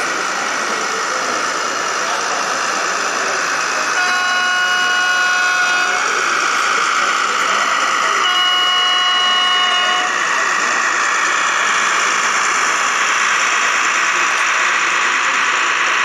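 Model railway horn sounding two blasts of about two seconds each, a few seconds apart, over a steady murmur of crowd chatter in the hall.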